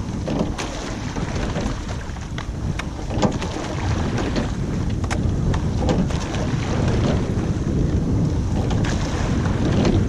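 Wind buffeting the microphone over water rushing past a sweep-oared rowing shell, with light knocks every two to three seconds from the oars in their oarlocks as the crew takes strokes.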